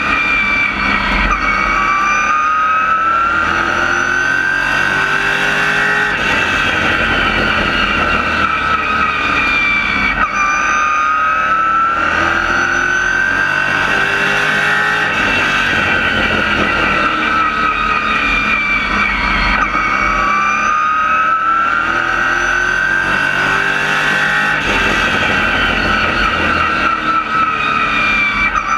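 Race car engine heard from inside the cockpit at racing speed: its pitch climbs steadily for several seconds, then drops sharply as the car slows for the turns, a cycle that repeats about every nine and a half seconds, once per lap of the oval.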